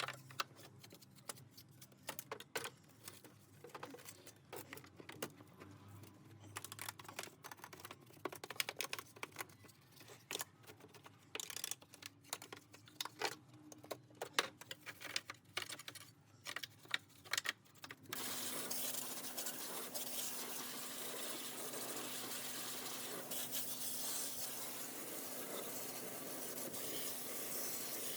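Workshop handling sounds: a run of small irregular clicks and taps. About two-thirds of the way in, a steady hissing rubbing noise with a faint low hum takes over, like sanding or scrubbing a part.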